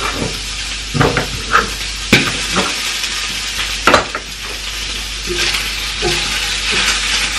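Food sizzling steadily in a frying pan on a gas hob, with three sharp knocks and clinks of kitchen utensils about one, two and four seconds in.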